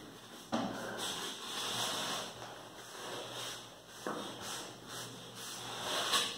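Paper towel rubbing across a plastic cutting mat in a few wiping strokes, clearing off dust and scraps.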